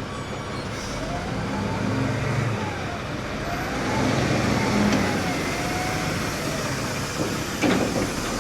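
Truck engine running, with a whine that rises and falls in pitch over and over, and a sharp swooping sound near the end.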